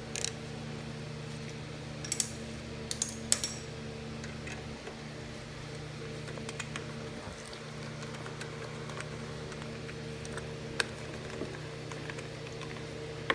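Sharp metallic clicks and clinks of a 10 mm socket on an extension against the carburetor mounting nuts and studs of a small Honda mower engine: a few in the first three seconds and one more near the end, over a steady low hum.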